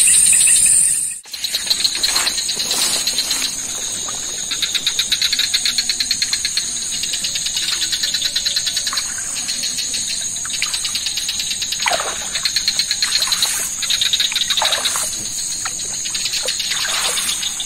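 Night insect chorus in a swamp: insects trilling steadily in high, rapidly pulsing tones. A few short falling chirps come in during the second half. The sound breaks off briefly about a second in.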